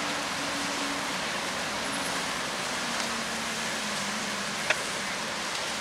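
Cars driving past: a steady rush of road noise, with a low hum that slowly falls in pitch and a couple of faint clicks.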